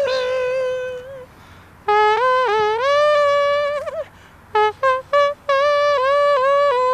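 Beatboxer's vocal imitation of a trumpet, playing a melody with bending, sliding notes: a held note that fades about a second in, a short pause, then phrases broken by a few short staccato notes midway.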